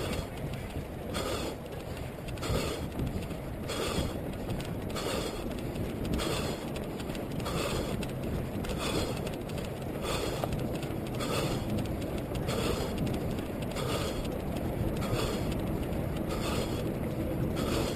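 A runner's rhythmic breathing while running, a breath out and in about every second and a half with the out-breaths stronger, heard through a head-mounted GoPro over a steady low rumble.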